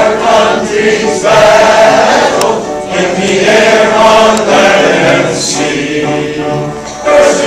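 Large mixed choir of elderly men's and women's voices singing an armed forces service-song tribute, in long held phrases with brief breaks between them.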